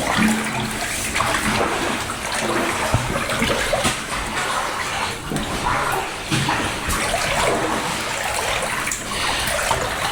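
Feet wading through standing floodwater in a drainage tunnel, with a slosh and splash roughly every second.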